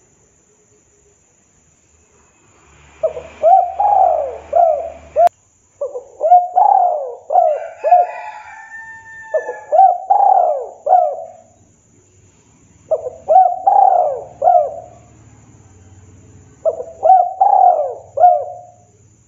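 Spotted dove cooing, starting about three seconds in: five bursts of song, each a quick run of rising-and-falling coos. A sharp click with a brief dropout comes just after the first burst.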